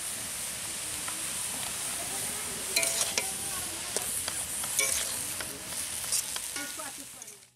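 Bathua (lamb's quarters) greens and green chillies sizzling in a hot metal wok with a steady hiss as steam comes off them, while a flat metal spatula stirs and tosses them, scraping and clicking against the wok several times from about three seconds in.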